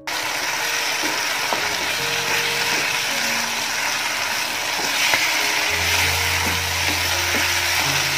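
Chicken pieces in masala sizzling steadily in a non-stick pan while the cooking liquid boils off, with a flat spatula scraping and stirring through them. The sizzle starts suddenly at the start.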